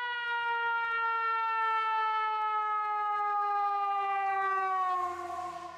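A single long held tone, rich in overtones, sliding slowly down in pitch, then dropping a little further near the end as it fades away.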